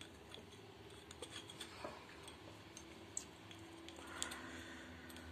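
Faint, scattered clicks and light knocks of small wooden burr-puzzle sticks being handled and fitted together, a few sharper taps about three and four seconds in.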